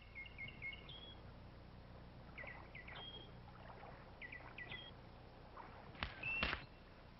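Songbird chirping in short phrases of quick falling notes that end on a higher note, three times over, above a faint steady low hum. About six seconds in come a few sharp snaps, the loudest sounds here, one carrying a brief high tone.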